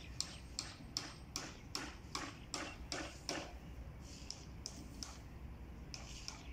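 German Shepherd dog panting with its mouth open, quick even breaths about two and a half a second, then softer breaths after about three and a half seconds.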